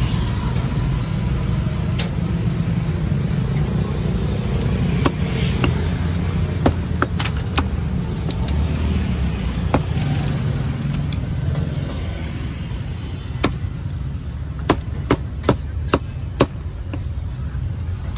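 Cleaver chopping roast meat on a chopping block: single sharp strikes here and there, then a quick run of five chops, about two a second, near the end. A steady rumble of street traffic runs underneath.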